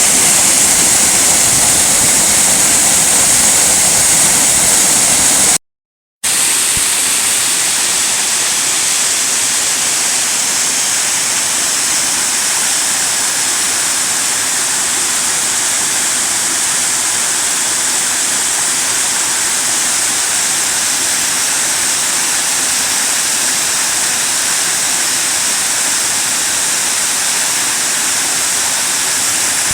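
Waterfall and mountain stream rushing: a loud, steady roar of falling water. It breaks off for a moment about six seconds in and resumes a little softer.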